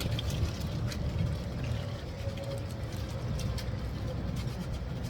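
Golf cart driving along: a steady low rumble of the ride with a faint, steady whine and light scattered rattles.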